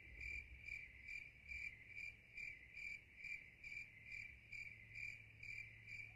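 Faint, steady cricket chirping, about two and a half chirps a second, over a low hum.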